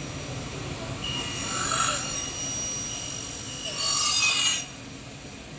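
Crater A 450 upcut miter saw's 450 mm blade cutting through a clamped metal profile under a lubricating mist spray. A loud, high-pitched ringing screech with several steady tones starts about a second in and stops abruptly near the end, after a softer hiss of the spinning blade and spray.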